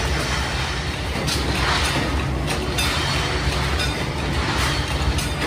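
Flywheel-driven mechanical power press running with a steady low hum and repeated clattering as a steel strip is fed through it to punch cultivator blade blanks.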